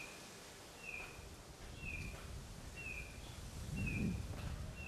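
A short high chirp repeating evenly about once a second, with a low rumble swelling to its loudest about four seconds in.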